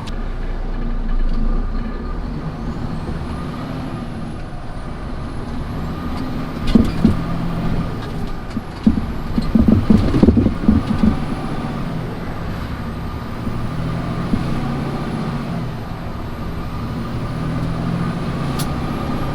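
Truck engine running steadily on the road. From about seven to eleven seconds in there is a stretch of loud rattling and knocking.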